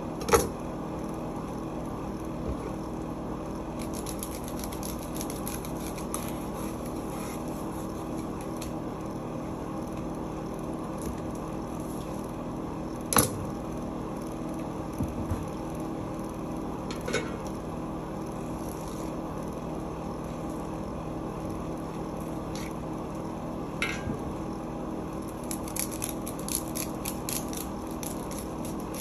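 Steady machine hum of kitchen equipment, with scattered clicks, knocks and light scraping from a knife working on salmon at a wooden cutting board. The sharpest knocks come just after the start and about halfway through, with quick runs of light ticks a few seconds in and near the end.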